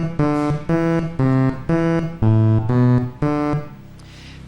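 Electronic keyboard-like tones play single notes at different pitches, about two a second, and stop about three and a half seconds in. They are a game show's nine-note memory sequence for the contestants to repeat.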